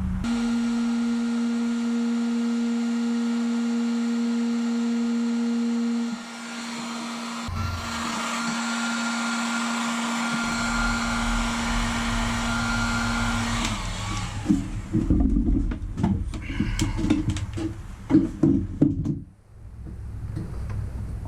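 A small electric motor with rushing air runs at a steady pitch for about six seconds, stops, then runs again for about six seconds. Then come irregular knocks and clatter of things being handled.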